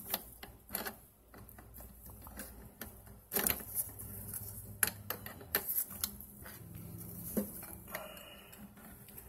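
Irregular metal clicks and light knocks of pliers working the compression nut of a toilet shut-off valve as it is tightened onto the supply pipe.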